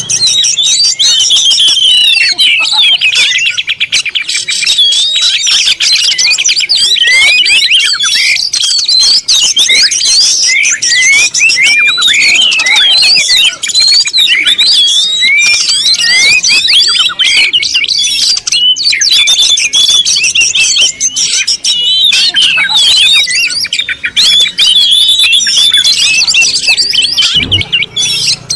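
Many small birds chirping and calling at once: a dense, unbroken chorus of overlapping high chirps.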